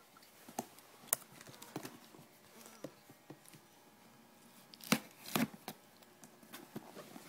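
Cardboard packaging being opened by hand: scattered rustles, tearing and light knocks, with a sharper knock about five seconds in and another shortly after.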